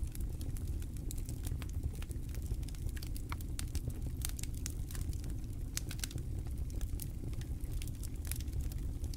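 Wood campfire crackling: irregular sharp pops and snaps, several a second, over a steady low rumble.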